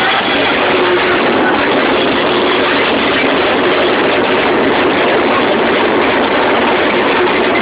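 Dance music over loudspeakers, recorded so loud that it comes out as a steady, distorted wash of sound.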